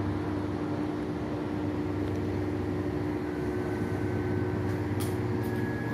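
Steady low mechanical hum of an idling engine, with a few short clicks about five seconds in.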